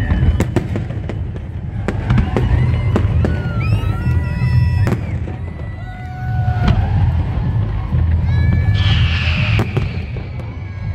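Fireworks display: a rapid run of sharp bangs and cracks from bursting shells over a continuous low rumble of booms, with a hissing crackle near the end.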